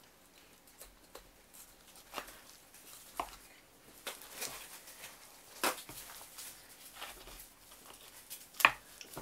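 Butchering on a wooden cutting board: a few scattered sharp knocks and slaps of a knife and raw elk meat, with a faint slicing hiss in the middle. The loudest knock comes near the end.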